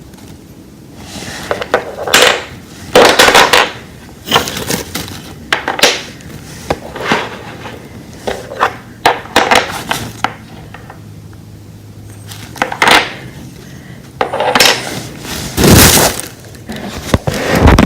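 Toy train track ramps and their packaging being handled, with irregular clattering and rustling in short bursts.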